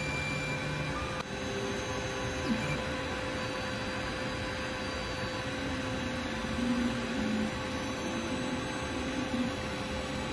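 TENLOG 3D printer printing: a steady whir from its fans, with the stepper motors whining in short tones that jump from pitch to pitch as the head and bed move.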